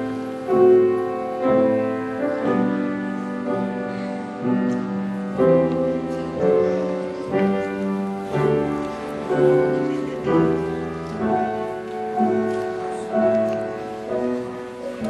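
Slow, gentle piano music, a chord struck and left to ring about once a second.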